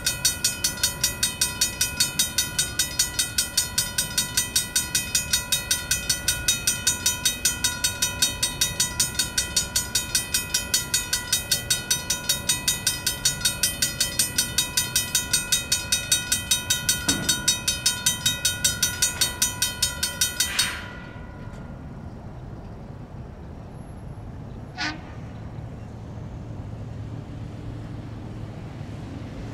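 Railroad crossing bell, part of the crossing's original 1960s signal equipment, ringing at a steady rapid rate of about three strikes a second, then cutting off suddenly about two-thirds of the way through: the bell is shut off when the public crossing's gates start to rise. A single sharp click follows a few seconds later over a low traffic rumble.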